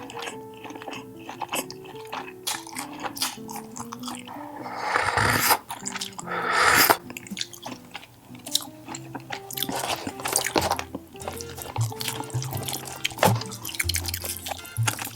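Close-miked chewing and crunching of food over light background music, with two louder rushing sounds about a third and halfway through.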